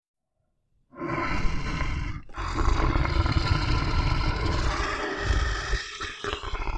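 Animal stampede sound effect: roars over a dense, heavy rumble of running hooves. It starts about a second in after silence and runs on loud, with two short dips.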